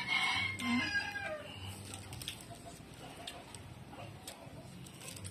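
A rooster crowing once in the first second or so, a held call that falls away at the end. Faint clicks follow.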